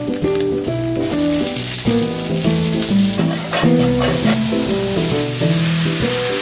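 Sliced onions and shimeji mushrooms sizzling in oil in a frying pan, starting about a second in, stirred with a wooden spatula. Background music plays a melody throughout.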